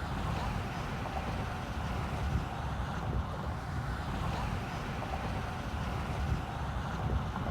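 Steady road and wind noise from inside a car cruising at highway speed, with a low rumble underneath.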